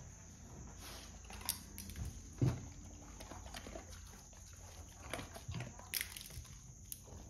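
Dogs sniffing and snuffling as they move about on a concrete floor, with scattered soft clicks and one louder low thump about two and a half seconds in.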